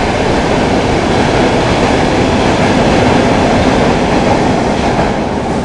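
Stockholm Metro C6 train running on the rails, a steady rumble of wheels and car body. It eases off slightly near the end.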